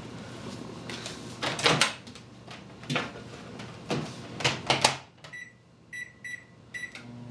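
Microwave oven being loaded and shut, with several knocks and clunks, then four short keypad beeps and the oven starting to hum near the end.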